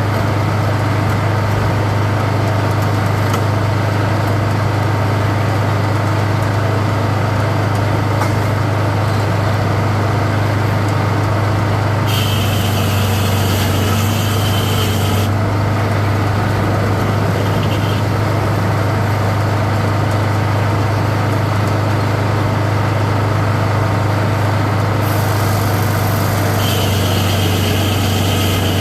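Sawmill engine running steadily at constant speed. A bright, high hiss joins it twice, once for about three seconds twelve seconds in and again near the end.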